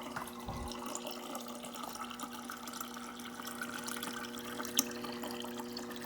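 A refrigerator's door water dispenser on autofill, running water into a container, with a steady hum from the dispenser under the water noise. A single sharp click sounds about two-thirds of the way through.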